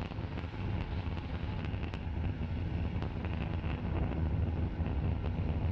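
Falcon 9 first stage's nine Merlin engines firing during ascent, heard as a steady deep rumble.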